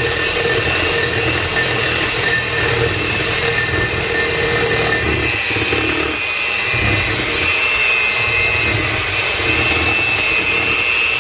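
Electric kitchen mixer running steadily, its motor giving a continuous high whine over a rough, uneven churning as the beaters work through a batter.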